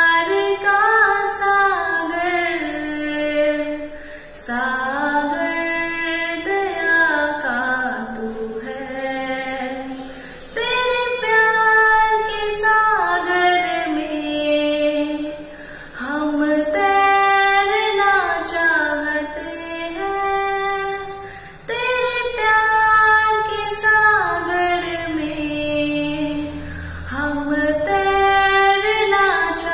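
A young woman singing solo with no instrument heard, in long held phrases of about five seconds each with brief breaks for breath between them.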